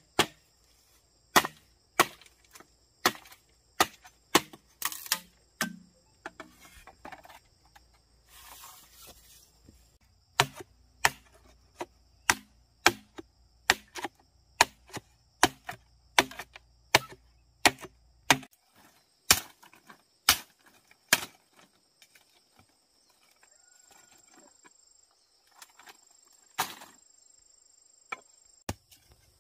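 Machete chopping bamboo: a long run of sharp knocks about every half to two-thirds of a second, thinning to a few scattered strikes after about eighteen seconds.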